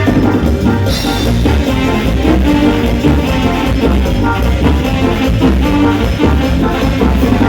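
Latin dance music with a steady drum beat, played loud over a sound system.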